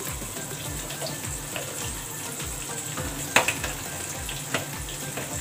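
Breadcrumb-coated fish fillets frying in hot vegetable oil in a pan: a steady sizzle full of small crackles, with a sharp pop of spattering oil a little past halfway and a smaller one near the end.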